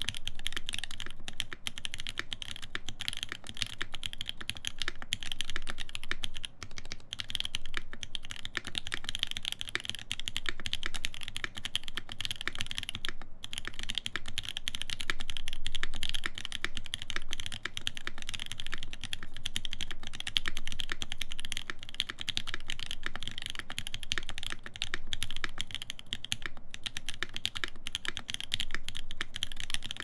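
Steady touch-typing on an AL.BOK mechanical keyboard with lubed Mauve linear switches, an aluminium full plate and GMK keycaps: a dense stream of keystroke clacks, with a brief pause about thirteen seconds in.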